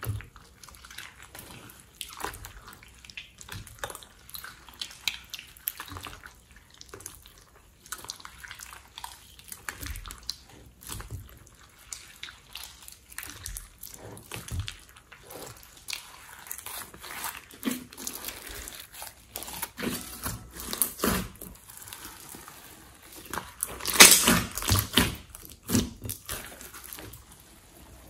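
Hands kneading and stretching a thick, glossy glitter slime: wet squelches and many quick sticky clicks and crackles as it folds and pulls apart, with a louder run of squishes near the end.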